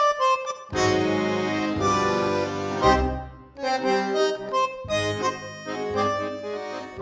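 Background music: an instrumental tune with a melody over bass notes.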